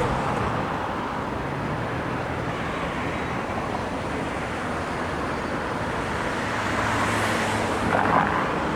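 Freight train of intermodal and autorack cars rolling past with a steady rumble, with a short wheel squeal about eight seconds in.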